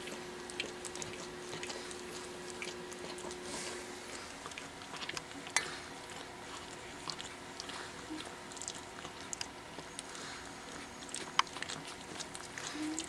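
Pekingese puppies mouthing and gnawing at each other in play: soft wet smacking and small scattered clicks, with two sharper clicks, one about halfway through and one near the end.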